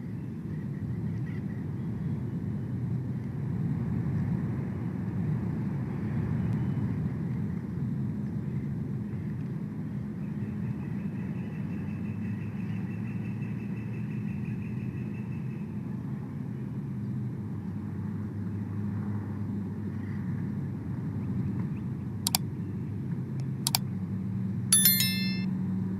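A distant engine droning steadily. A few sharp clicks and a short high chirp come near the end.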